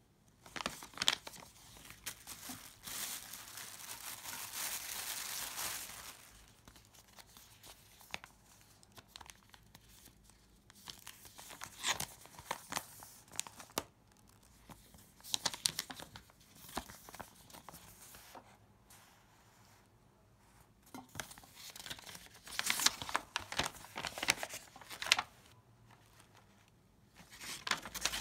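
Thin paper instruction leaflets rustling and crinkling as they are unfolded, turned and refolded by hand, in several bursts with quiet gaps between.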